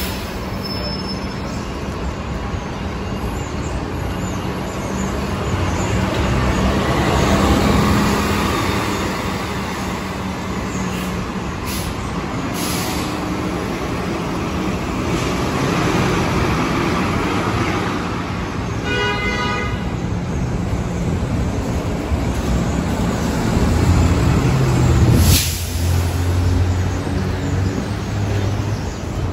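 City transit buses running in traffic, with a steady low engine hum throughout. About two-thirds of the way through comes a brief high-pitched tone, and near the end a sharp hiss of air brakes.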